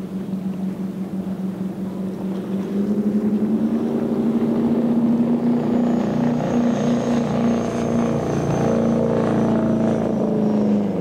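Powerboat engines running at speed through the inlet: a steady droning note made of several tones that waver against one another, getting louder about two and a half seconds in and staying loud, with a faint high whine in the middle.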